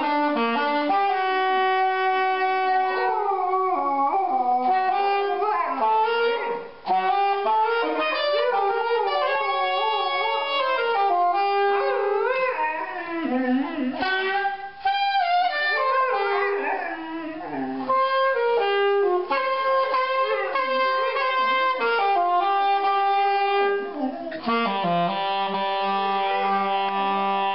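A dog howling along to music, its wavering, gliding howls weaving between long held instrument notes, most often in the middle stretch.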